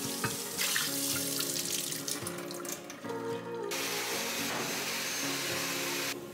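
Water running and splashing at a kitchen sink as dishes are washed. Later it turns into a steady rushing hiss that cuts off suddenly near the end, with soft music underneath.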